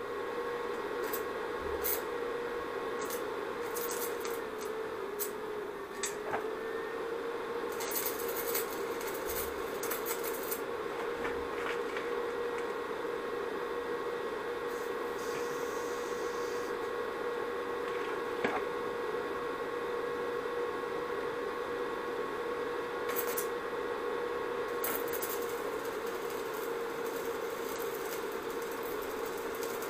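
Electric arc welding on a steel motorcycle frame tube to close a crack: short spells of arc crackle and hiss, the last running on near the end, over a steady hum. A few sharp clicks come in the first seconds.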